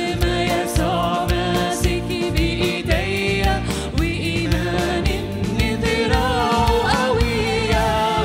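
Live Arabic worship song: a woman singing lead into a microphone, with backing voices, over keyboards and an electronic drum kit keeping a steady beat.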